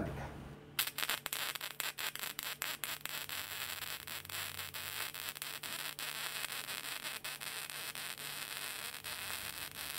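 MIG welding arc on steel flat bar, crackling densely and steadily as a bead is run along a bevelled butt joint. The arc strikes about a second in.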